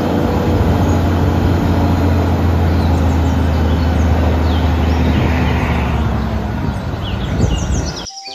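Eight-wheel tipper lorry's diesel engine running steadily while the tipping body is raised on its hydraulic ram, with birds chirping faintly. The sound cuts off abruptly near the end.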